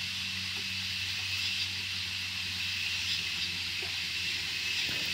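Steady high hiss with a faint low hum underneath, unchanging throughout.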